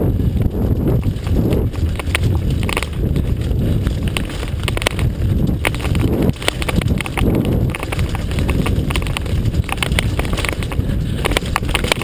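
Mountain bike rattling over a rough, rocky trail: quick irregular knocks and clatter over a steady low rumble.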